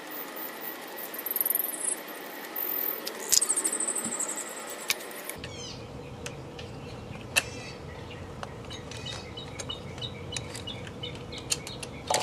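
Rubbing, scratching and a few sharp clicks as the thick orange high-voltage cables of a Nissan Leaf inverter are handled, with birds chirping in the background, most plainly in the second half.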